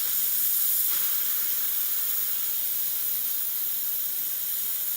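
Steam hissing steadily out of a small home-built electrically heated model steam boiler, a loud even high-pitched hiss that began abruptly just before. A faint low hum fades out about a second in.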